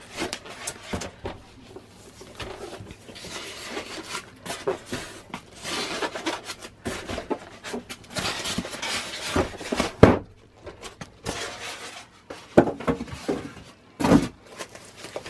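Foam packaging being handled as white foam end caps are pulled off a foam-wrapped cutting machine. There are irregular scraping and rustling noises and a few sharp knocks, the loudest about ten seconds in.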